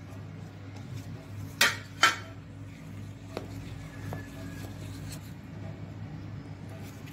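Kitchen utensils clinking against a stainless-steel mixing bowl as chopped dates are added and stirred into thick cake batter. There are two sharp, ringing clinks about a second and a half and two seconds in, then a couple of fainter taps of the spoon in the bowl, over a steady low hum.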